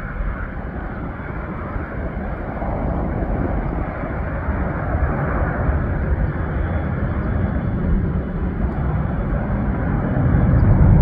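Boeing 737-800 airliner's CFM56-7B turbofan engines at takeoff thrust as it lifts off and climbs away: a steady rushing jet noise that grows louder toward the end.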